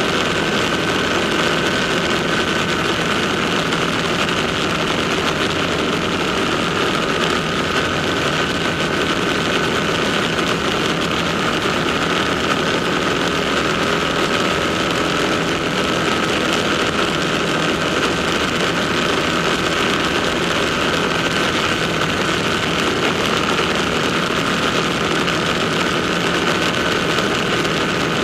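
Ducati motorcycle engine noise, running steadily with no sharp revs or changes.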